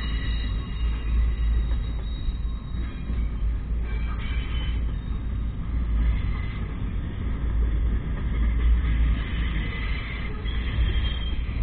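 Slow-moving double-stack container freight train passing: a steady low rumble of the well cars rolling over the rails, with faint high wheel squeals coming and going, clearest near the end.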